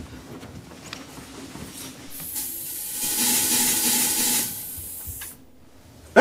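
Stage fog machine hissing as it blows out a burst of smoke. The hiss starts about two seconds in, lasts about three seconds and cuts off suddenly.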